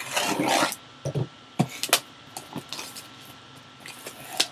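Cardboard box being handled: a scraping rustle in the first second, then several sharp knocks and taps.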